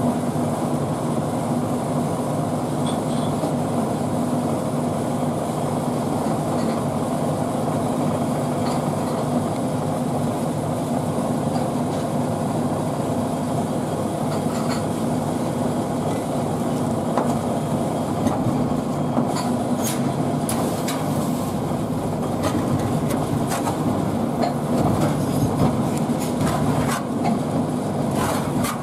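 Steady low machine hum; from about two-thirds of the way in, metal spatulas click and scrape against the frozen aluminium cold pan.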